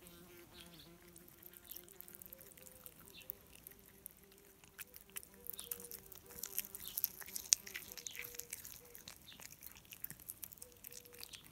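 Domestic calico cat chewing and licking food from a person's fingers, with a run of wet smacks and sharp mouth clicks that is busiest from about five to ten seconds in.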